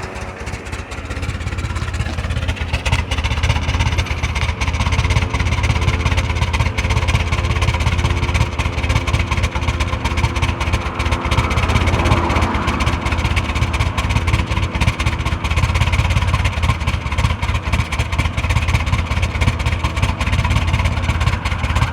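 Chevrolet Blazer engine idling roughly with an uneven low pulsing beat; it gets louder over the first two seconds, then runs on steadily. The owner has posted it for help finding the cause of the rough idle.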